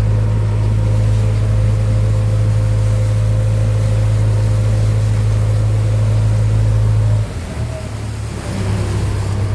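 Diesel engine of a JCB 3DX backhoe loader running with a steady low drone. About seven seconds in it drops in level and pitch, then picks back up a second or so later.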